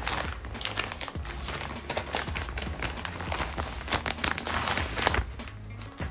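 Plastic and paper packaging crinkling and rustling in the hands as a wig is unwrapped from its bag: a dense, irregular run of small crackles.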